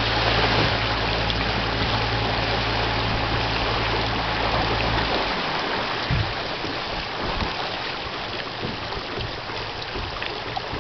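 Boat engine running with a low, steady hum that cuts off suddenly about five seconds in, leaving a constant splashing and rushing of choppy water against the hull.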